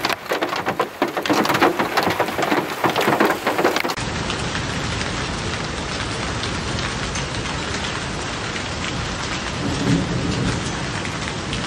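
Hailstones striking hard surfaces in a dense run of sharp hits. About four seconds in this gives way abruptly to the steady, even hiss of a downpour of hail and rain.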